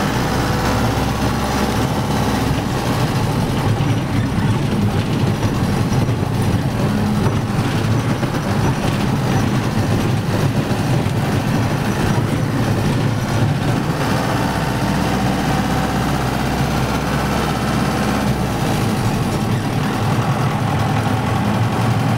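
Steady, loud vehicle rumble and noise with no breaks or distinct events.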